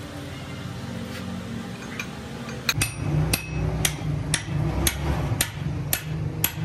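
Hammer striking a chisel held against a steel gear, sharp metallic blows about twice a second starting about two and a half seconds in, over a steady low hum.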